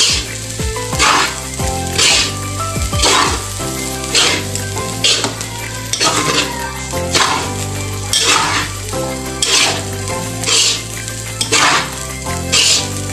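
A spatula scraping and turning fried rice in a metal wok over the frying, about one scrape a second.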